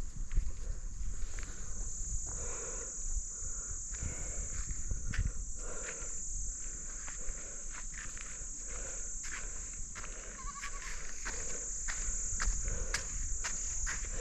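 A steady high-pitched insect chorus, with scattered clicks and soft knocks of hooves and feet on a stony path as a herd of goats walks along it.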